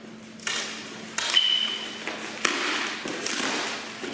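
A package being handled and opened: several short scraping, rustling handling noises, with a brief high-pitched squeak about a second in.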